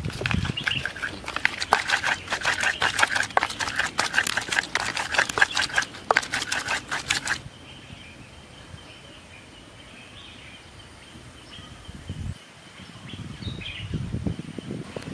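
A rapid run of sharp clicks and scrapes, many a second, that stops suddenly about seven seconds in. After it comes quieter outdoor background with a faint steady high tone, and a few low knocks near the end.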